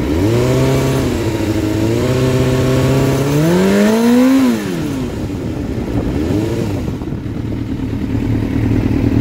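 Suzuki sport bike engine revved through an aftermarket Yoshimura exhaust. It blips up and holds briefly, settles to idle, then climbs in a longer rev to a peak about four seconds in and drops back. A short blip follows at about six and a half seconds, and then it idles.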